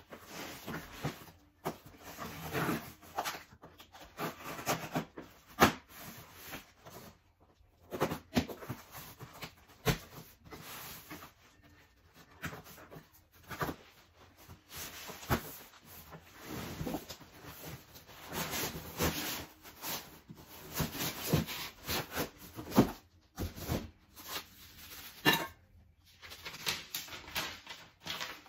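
Heavy metal frame pieces being unpacked and handled: irregular rustling of packaging with scattered knocks and clicks.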